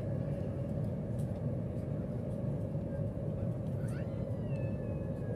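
Steady low rumble inside the cabin of the Jakarta–Bandung high-speed train running at about 139 km/h. About four seconds in, a short, fainter high-pitched sound like a voice rises, holds for about a second and a half, and drops away.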